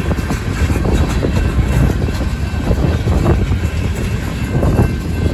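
Freight train cars rolling past: a steady rumble of steel wheels on the rails, with small irregular knocks and a faint high whine.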